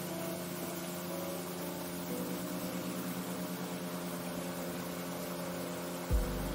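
Outboard motor of a small aluminium boat running steadily at cruising speed. A low thump near the end.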